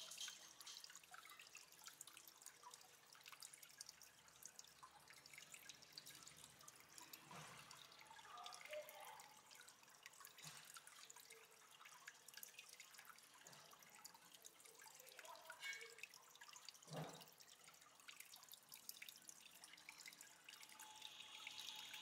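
Faint trickling and dripping water from an aquarium waterfall, with small bubbling plinks scattered throughout and a soft thump about seventeen seconds in.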